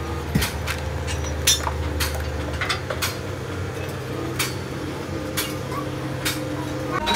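Workshop machinery humming steadily, with sharp metallic clinks and taps about once a second. A deeper part of the hum drops away a little before halfway.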